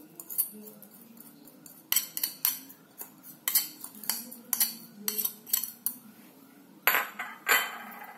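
A metal fork scraping and tapping against a ceramic plate, knocking seasonings off it: a string of short clinks and scrapes, with a few louder clinks near the end.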